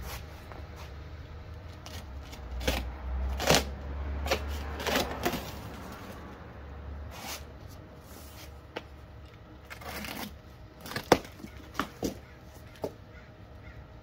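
A large cardboard shipping box being cut and pulled open by hand: irregular knocks, scrapes and rustling of cardboard, with a cluster of sharp taps near the end.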